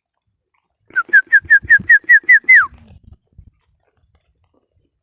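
A person whistling a quick run of about nine short, slightly rising whistle notes, ending in a longer whistle that slides down in pitch.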